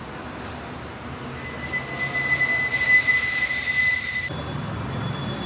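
A loud, high-pitched metallic ringing squeal with several steady tones at once; it builds up over about three seconds from just after a second in, then cuts off suddenly.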